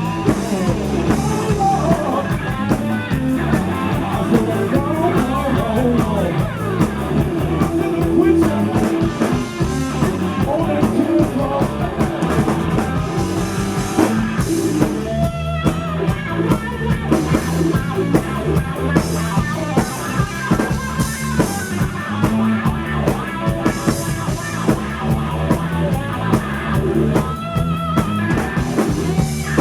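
Live rock band playing: electric guitar over a steady drum-kit beat, with some singing.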